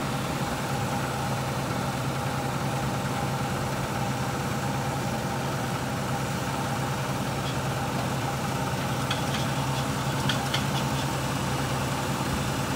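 Flatbed tow truck's engine idling steadily while the car is let down the tilted bed, with a few light clicks about nine to eleven seconds in.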